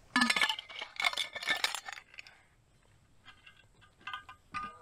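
Metal camp coffee-kit cookware clinking and clanking as it is handled, with two loud rattling clusters of ringing clanks in the first two seconds, then a few lighter clinks near the end.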